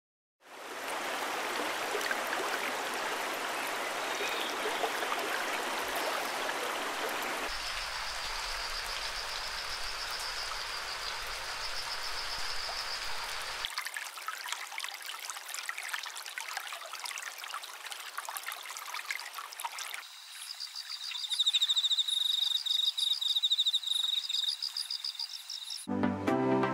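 Water running and trickling in a steady rush that changes character abruptly a few times. A high, fast-pulsing chirp sits over it from about a third of the way in, and near the end it comes back louder as the whole sound grows louder.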